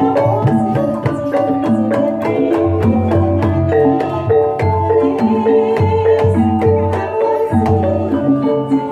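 Javanese gamelan music of the kind played for ebeg: mallet-struck keyed instruments ringing out a busy, interlocking melody over hand-drum strokes.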